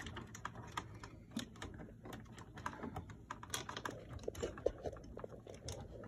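Irregular small plastic clicks and rattles, several a second, from hands handling an old smoke alarm's opened housing and battery compartment.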